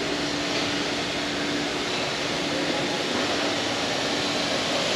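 Steady mechanical hum over an even rushing hiss, unchanging throughout.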